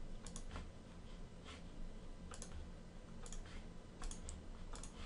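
Faint, scattered clicks of a computer mouse and keyboard at a desk, about a dozen short clicks at uneven intervals.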